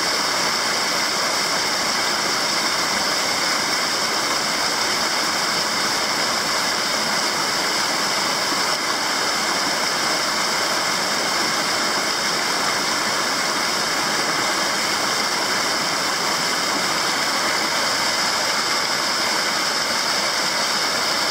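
Small mountain-stream cascade spilling over mossy boulders into a pool: steady rushing water.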